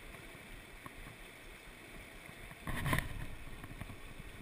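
Faint, steady rushing of a fast, shallow stream running over rocks. A brief louder noise about three seconds in.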